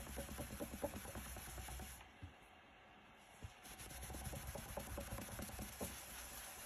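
A pad rubbing hard wax oil into a wooden board: quick scratchy back-and-forth strokes, with a pause of about a second and a half partway through before the rubbing resumes.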